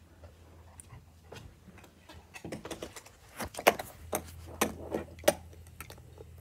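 Irregular clicks and knocks of a phone being handled and bumped against a plastic laundry basket. They are loudest and closest together in the middle.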